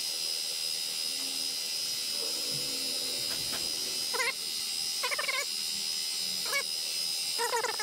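Benchtop mill-drill running with an end mill cutting a keyway, played back at four times speed, so it comes across as a steady high-pitched whine. Short chirping squeaks break in four times in the second half.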